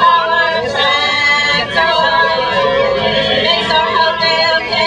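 A group of singers performing a song together, several voices in harmony.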